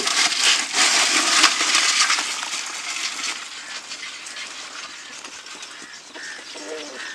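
Live freshwater crabs clattering and scraping against each other and the sides of a metal pot as a hand rummages in and scoops a handful out. A dense rattle for about the first three seconds, then fading to a few faint clicks.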